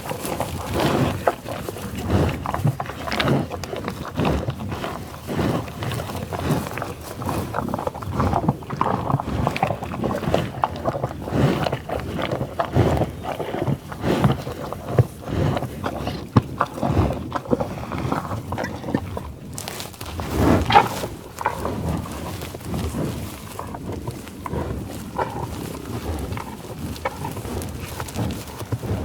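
Buffalo growling and lowing loudly, a continuous run of short, rough calls one after another, with the loudest call about two-thirds of the way through.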